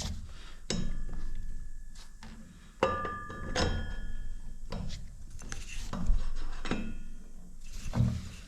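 Metal parts clinking and knocking as a motorcycle front wheel, axle spacers and washers are fitted onto the front axle: several separate knocks, a few of them ringing briefly.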